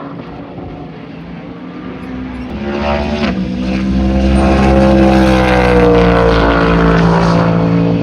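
Race car engine approaching and passing at speed, growing louder to a peak midway. The note drops suddenly about three seconds in, like an upshift, then sags gently in pitch as the car goes by.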